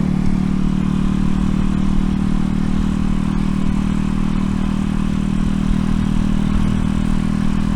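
Single-cylinder engine of an RPS Racer 140 mini bike running at a steady, low speed in 4th gear through a stainless steel side-exit exhaust, holding one even note with no revving.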